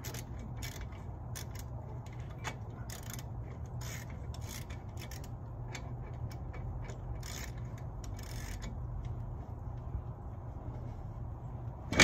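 A hand wrench turning a 19 mm brake caliper bolt as it is run in and snugged: scattered, irregular metallic clicks and scrapes.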